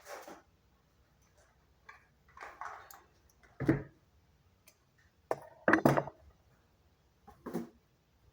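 A series of short knocks and clatters a second or two apart, the loudest a few seconds in.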